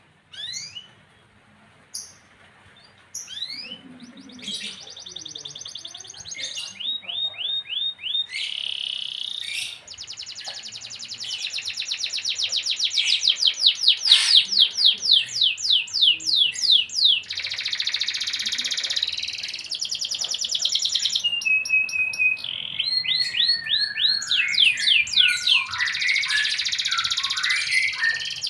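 Domestic canary singing a long, continuous song of fast rolling trills and rapid rising and falling whistled phrases, after a few short chirps in the first seconds.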